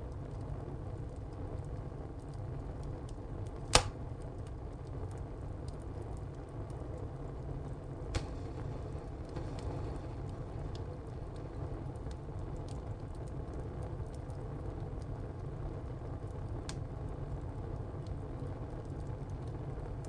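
Wood fire burning in a tile stove: a steady low rumble with scattered small crackles and a few sharp cracks from the burning wood, the loudest about four seconds in, others at about eight and seventeen seconds.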